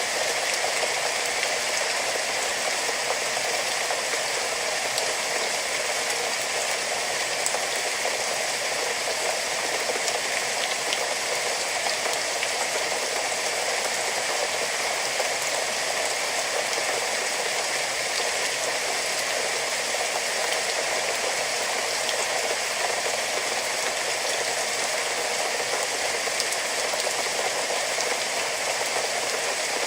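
Steady rain falling, a dense even patter of many small drop ticks with no let-up.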